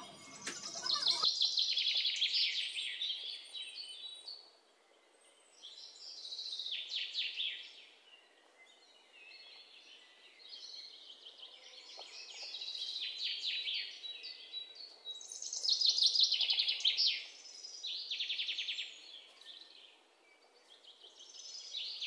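Recorded birdsong sound effect: small birds chirping in repeated bursts of rapid, high chirps and trills, with short pauses between the bursts.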